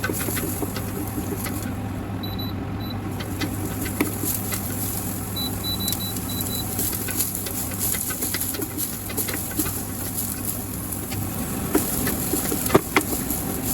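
Chopped onions sizzling in oil in a pot as they are stir-fried, with a few sharp knocks of the utensil against the pot. A steady low hum runs underneath and stops about eleven seconds in.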